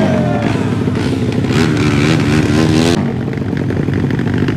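Motorcycle engine running, its pitch falling at the start, then wavering up and down as the revs change.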